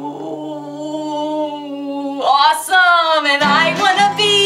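A woman's voice holding one long, steady vocal tone in a playful rhinoceros imitation, then a short, loud breathy burst about two seconds in. She then sings over acoustic guitar strumming.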